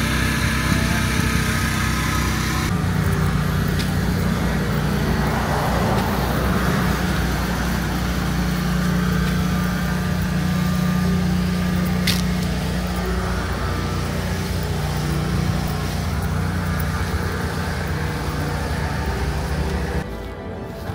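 Steady motor-vehicle engine hum with road traffic noise, changing abruptly about three seconds in and falling off near the end, with one sharp tick midway.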